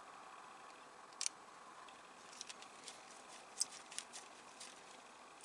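Faint small clicks and ticks of a precision screwdriver turning a tiny screw into a plastic model-car dashboard part, with a sharp click about a second in and a few more between two and five seconds in, over quiet room tone.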